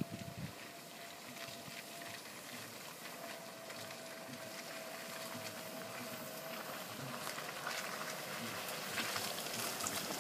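Range Rover L322 approaching slowly along a narrow overgrown track, growing gradually louder, with a steady crackling of bushes brushing its sides and its tyres on the lane.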